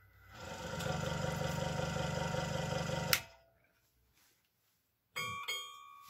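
Speed-controlled Hegner Junior scroll saw starting up and running without a workpiece, its blade stroking at a fast even rhythm. About three seconds in it is switched off with a sharp click and quickly runs down. Near the end come two sharp clicks with a ringing metallic tone.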